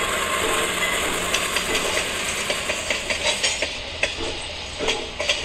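HO scale model train running past close by: a steady rushing noise with short wheel clicks over the track joints, which come more often in the second half.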